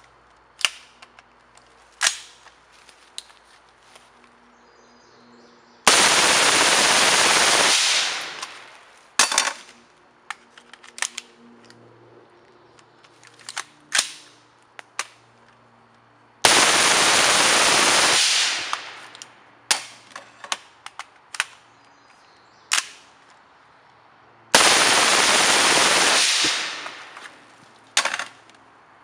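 Suppressed full-auto fire from a 10.5-inch M16 fitted with a Rugged Surge 762 suppressor. There are three long bursts of about two seconds each, with short sharp clicks and clanks between them.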